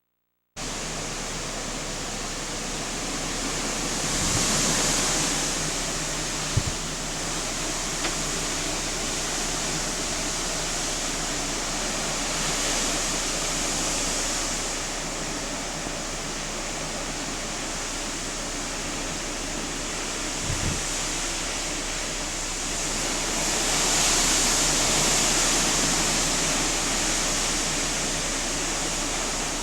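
Hurricane wind rushing steadily, swelling in gusts three times, with a few brief clicks.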